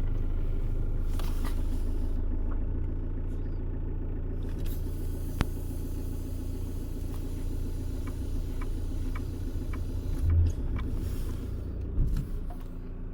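Renault Scénic 1.9 dTi diesel engine idling with a steady low hum. A sharp click comes about five seconds in, then a few faint ticks, and two short thumps come near the end.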